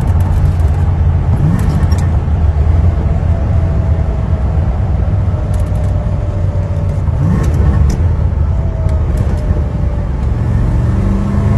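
Steady in-cabin drone of a 1980 Chevrolet Corvette's V8 cruising at road speed, with wind and tyre noise.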